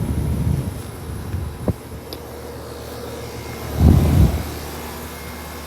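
Air-conditioner condenser unit running with a steady low hum, with a brief louder low rumble about four seconds in.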